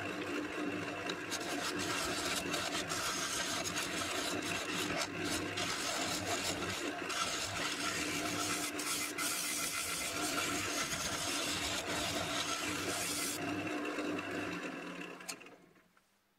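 Wood lathe running while abrasive and a metal scraper rub against the inside of a spinning elm vase: a steady rasping hiss over the motor's low hum. The lathe winds down and the sound dies away about fifteen seconds in.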